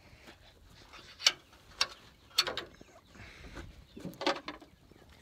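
The hood latch of an OBS Ford pickup is worked by hand and the hood is raised: a handful of sharp metal clicks and clanks, spread over a few seconds.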